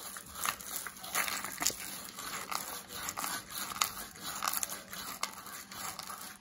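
Sandpaper scrubbing around the outer end of a copper pipe, a run of irregular scratchy strokes as it is twisted back and forth, cleaning the copper to a shine for a snug fit in a fitting.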